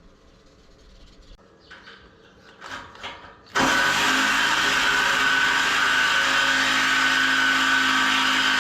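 A handheld power tool's motor running steadily at speed: a high whine over hiss that starts abruptly about three and a half seconds in, after a few faint handling noises.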